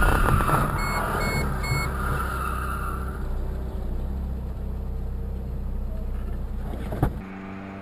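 A car driving, with a steady low engine and road rumble. About a second in come three short, evenly spaced high electronic beeps. Near the end a click cuts to a quieter, different steady hum.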